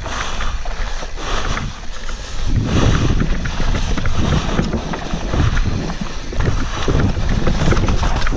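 Wind buffeting a GoPro microphone over the rumble and rattle of a YT Capra 29 enduro mountain bike descending a dirt forest trail at speed. Frequent short knocks from the tyres and frame hitting bumps and roots.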